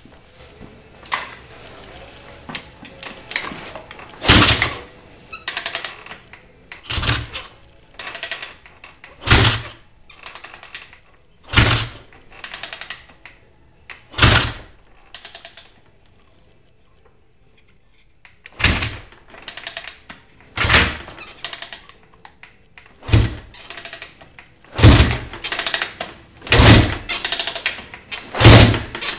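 Honda TRX450R four-stroke single being kicked over again and again without firing, because the ignition has no spark: about a dozen hard kicks some two seconds apart, each a loud clunk with a short mechanical rattle, with a pause of a few seconds midway.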